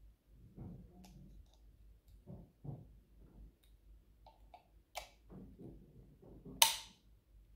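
Small plastic clicks and handling noise as a detachable EU plug head is fitted onto a small white plastic power adapter. It ends in one sharp, loud snap near the end as the plug head locks into place.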